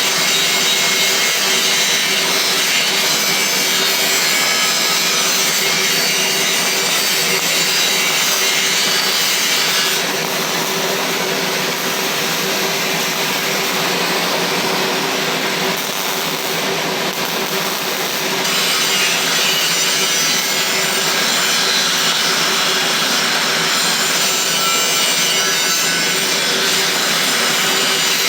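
Continuous crackling hiss of a welding arc, with a steady hum underneath. It eases a little for several seconds near the middle.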